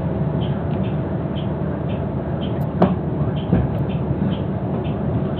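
City bus running at a stop: a steady low engine hum, with a faint high tick repeating about twice a second and two sharp knocks near the middle.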